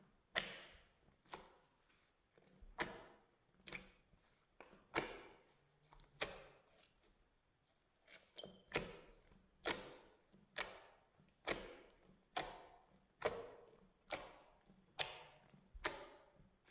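Slime being pressed and poked, giving a run of sharp pops and clicks that each die away quickly, about one or two a second, with a short pause around seven seconds in.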